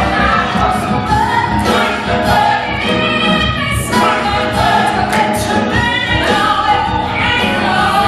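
Stage musical cast singing together in a gospel-style chorus over the pit band's accompaniment, with a steady beat.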